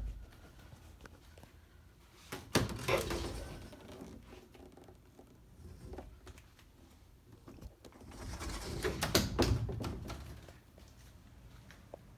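A few sharp knocks and thumps with rustling movement, echoing in a small room. The loudest come about two and a half seconds in and again about nine seconds in.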